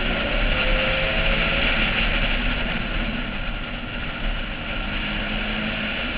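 Wind rushing over a roof-mounted camera on a Porsche 996 at track speed, with the car's engine running underneath at fairly steady revs.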